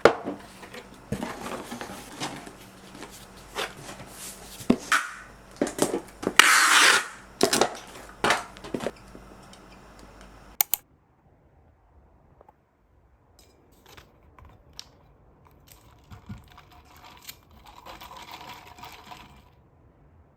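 Close handling sounds: rustling, crinkling and tearing with many sharp clicks, and one loud tearing rasp about six seconds in. About ten and a half seconds in it drops abruptly to quiet, with only occasional light taps.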